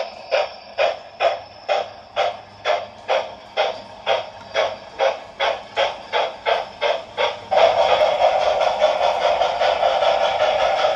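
Model steam locomotive's DCC sound decoder playing steady exhaust chuffs, about two a second, as the G-scale Mallet runs. About two-thirds through, the sound changes abruptly to a louder, continuous hiss with a fast flutter.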